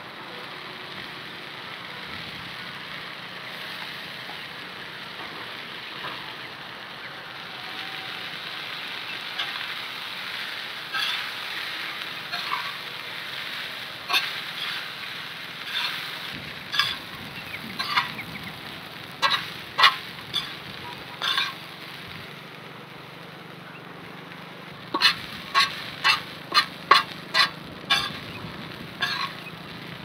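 Food sizzling on a hot tawa while rice and vegetables are stirred together, with a metal spatula scraping and clanking against the pan. The scrapes come every second or so, then in a quick run of strokes near the end.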